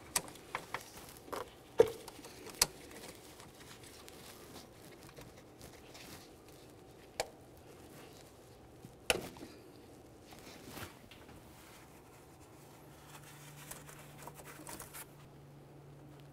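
Handling noises as rubber spark plug wire boots are worked by gloved hands onto the ignition coil and spark plugs: soft rustling and rubbing with a few sharp clicks scattered through, the loudest about two seconds in. A faint low hum comes in about three quarters of the way through.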